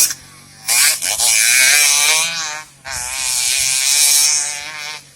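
Racing motorcycle engines at high revs passing, a buzzing drone that wavers in pitch. A short burst comes first, then two long passes about a second and a half each, the last one fading out near the end.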